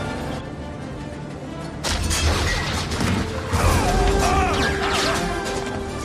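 Film soundtrack: orchestral score under a tank cannon blasting back inside its own hull, its muzzle blocked, with a sudden crash about two seconds in and a second loud crash and clatter about a second and a half later.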